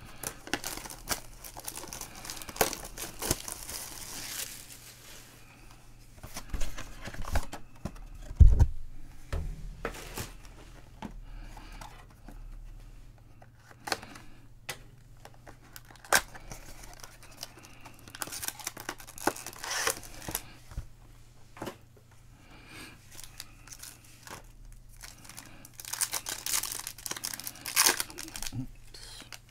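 Plastic shrink-wrap torn and crinkled off a trading-card box, the box worked open and foil card packs crinkling in the hands, with scattered sharp clicks. A single low thump about eight seconds in.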